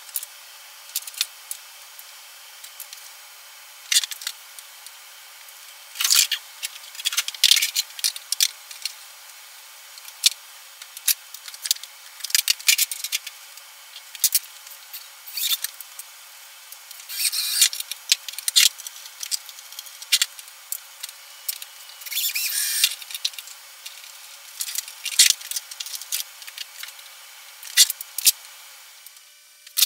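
Irregular hand-handling noises at a workbench: sharp clicks, knocks and brief scrapes of plastic parts and small tools as a plastic electrical enclosure is assembled and its lid closed. Several longer rustling clusters stand out among the single clicks.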